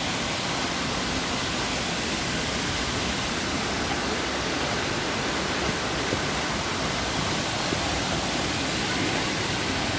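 Water rushing down a waterfall and its stream, a steady, even rush with no change.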